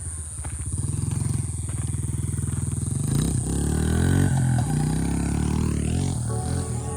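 Honda CRF110 pit bike's small single-cylinder four-stroke engine running under riding load, revving up and back down a few times about halfway through.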